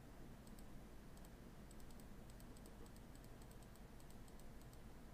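Faint, irregular clicking of a computer mouse button pressed over and over, sometimes in quick runs of two or three, stepping a program line by line. Otherwise near-silent room tone.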